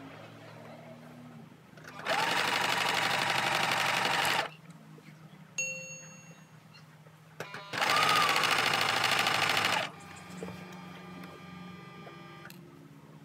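Electric home sewing machine running in two bursts of about two seconds each, stitching a folded hem in the fabric. A short ding sounds between the two bursts.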